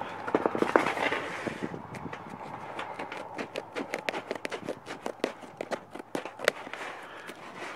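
Scissors snipping through a sheet of black roofing membrane: the sheet rustles as it is handled for about the first two seconds, then comes a quick, uneven run of short cutting clicks.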